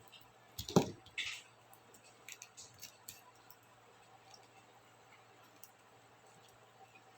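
Small plastic clicks and snaps of laptop keyboard keycaps being handled: a cluster of sharp clicks a little under a second in, the loudest with a light knock, then a few lighter ticks between two and three seconds in.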